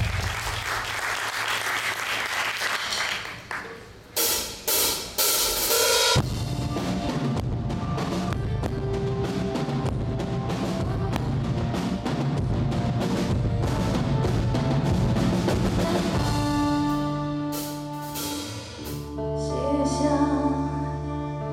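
Live rock band playing an instrumental intro on drum kit, bass and electric and acoustic guitars. It opens with a cymbal wash and a few accented hits with short breaks, settles into a steady drum beat, and near the end the drums thin out under long held guitar and bass chords.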